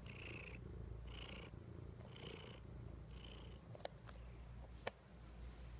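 Domestic cat purring close to the microphone: a steady low rumble that swells in a rhythm about once a second. Two short sharp clicks, about a second apart, come in the second half.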